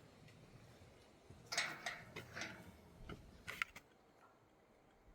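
Metal clicks and rattles from a mechanical gate lock being worked by hand, a cluster of sharp clicks over about two seconds.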